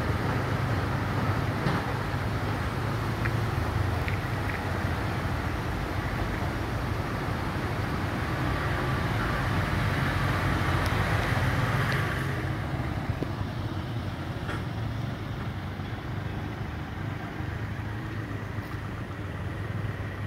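Steady road traffic noise: a vehicle's low engine rumble with a rushing hiss. It eases about twelve seconds in.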